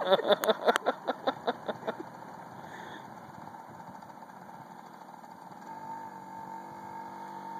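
Small mini dirt bike engine idling. A run of short pulses fades out over the first two seconds, and a steady hum with a faint high whine settles in about six seconds in.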